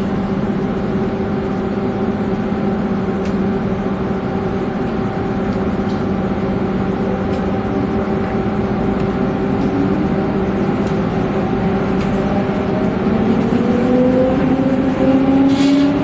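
Stockholm commuter rail X10 electric train running with a steady electrical hum. From about nine seconds in, a whine rises steadily in pitch as the train picks up speed.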